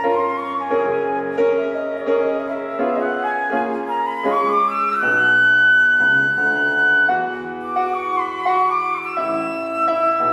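Concert flute playing a melody over grand piano accompaniment, with one long held high note in the middle.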